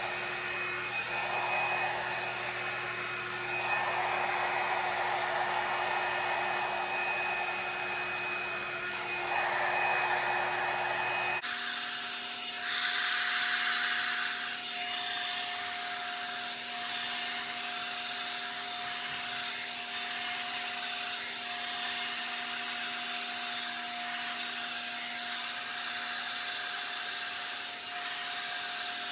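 Revlon One-Step hot air brush dryer running on its low setting: a steady motor whine with rushing air. About eleven seconds in, the pitch of its whine changes abruptly.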